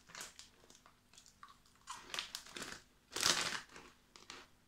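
Crunchy hazelnut spelt biscuit being chewed, with a clear plastic bag crinkling; the loudest rustle comes about three seconds in.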